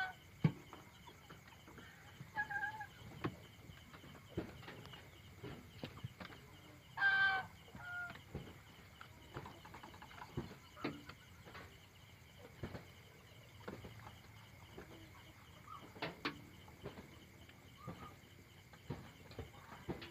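Domestic chickens roosting at night, giving a few short soft clucks and one louder call about seven seconds in, amid scattered small clicks and knocks.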